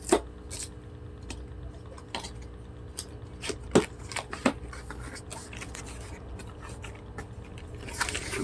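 Gift packaging being handled and opened by hand: a series of sharp clicks and knocks, with a brief rustle near the end.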